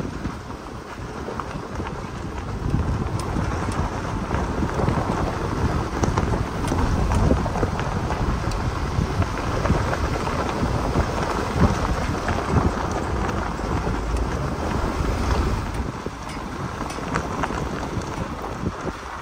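A vehicle driving slowly on a rough gravel forest road: tyres rolling over gravel and dirt with a low rumble, and wind buffeting the microphone. Scattered small clicks of stones are heard, and the rumble eases off about three seconds before the end.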